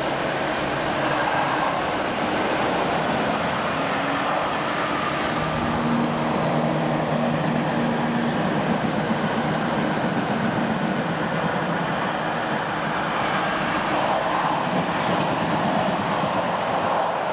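A train running through a station: a steady, loud rumble of wheels on rail. A low hum and a faint high whine come in for a few seconds around six seconds in.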